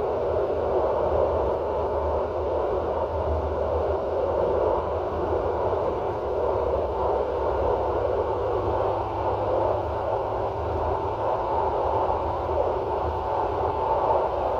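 Steady running noise of a regional passenger train, heard from inside its rear, inactive driver's cab: a constant rushing hiss over a low rumble, with no distinct clacks or changes.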